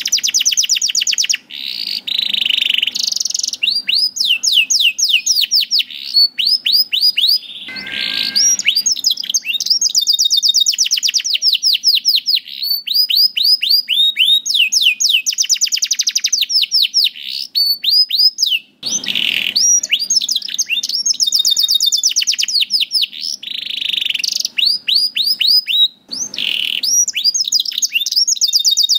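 Canary singing continuously in long rapid trills of repeated high, sweeping notes, changing from one run of notes to the next, with a few brief breaks.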